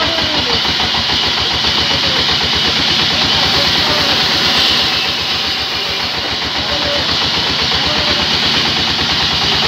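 Large sawmill band saw running without cutting, its drive giving a steady, fast-pulsing engine-like hum under a broad hiss.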